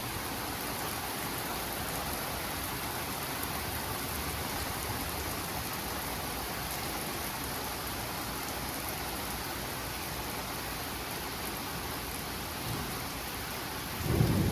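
Heavy rain falling steadily in a thunderstorm, with a brief low rumble of thunder near the end.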